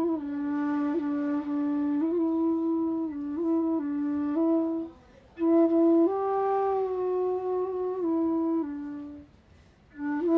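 Background music: a solo woodwind, flute-like in tone, plays a slow melody of held notes, breaking off briefly twice, about halfway through and near the end.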